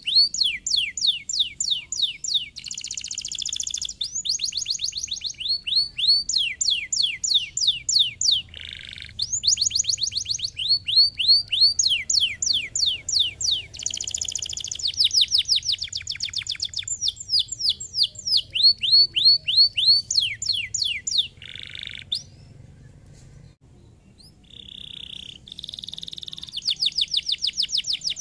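Domestic canary singing: long, fast trills of repeated sweeping high notes, broken by short buzzy rolls, with a brief lull about three-quarters of the way through before the trills resume.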